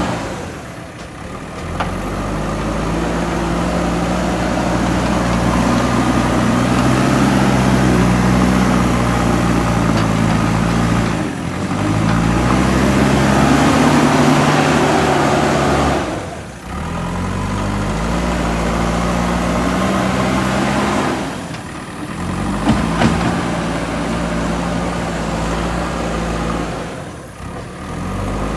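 JCB 3DX backhoe loader's diesel engine working, its note rising and falling as the revs change, with brief dips in the sound several times.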